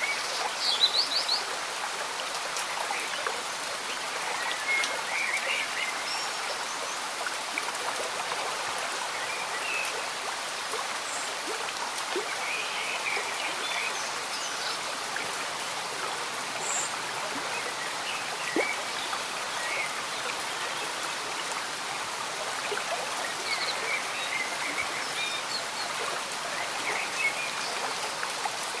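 A slow stream bubbling under steady gentle rain, with scattered short high chirps from small animals throughout, including a quick run of chirps about a second in.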